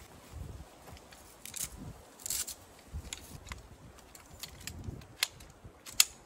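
Rustling of a nylon carry bag and scattered clicks of a folding tripod stand's rods as its legs are pulled out and unfolded, with two sharp snaps near the end, the last one loudest.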